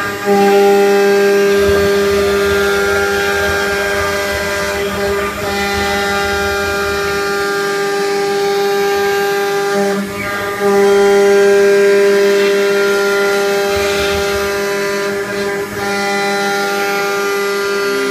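CNC router spindle running with a steady high-pitched whine in several tones while its bit cuts a round hole through a black treaded pad. The sound jumps up as the cut begins and dips briefly three times as the bit's load changes.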